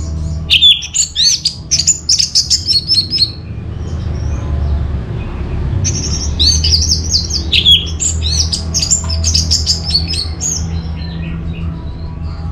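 Orange-headed thrush singing: two bouts of fast, varied high whistles and chirps, the first about three seconds long and the second, after a short pause, about five seconds. A steady low hum runs underneath.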